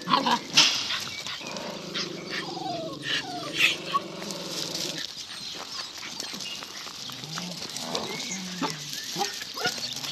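Puppies playing on loose gravel: short sharp yips and stones crunching under paws, a drawn-out play growl from about a second and a half in, and a few short whines near the end.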